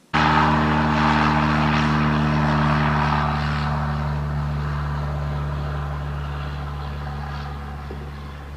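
Single-engine light aircraft's piston engine and propeller running at a steady speed, cutting in suddenly and slowly fading away.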